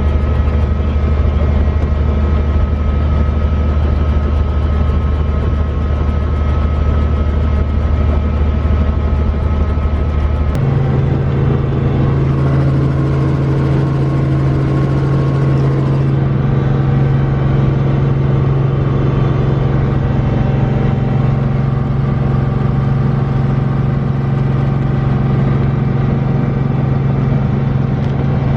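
Helicopter engine and rotor noise, a loud steady drone. About ten seconds in its pitch jumps suddenly higher after a click, then holds steady again.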